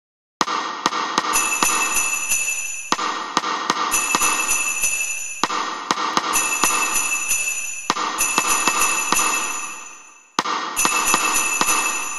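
Music: a repeating phrase of bell-like chimes over quick ticking percussion, starting afresh about every two and a half seconds and fading away before each restart.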